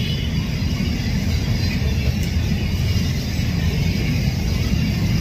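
Steady low rumble of roadside traffic, with no distinct events.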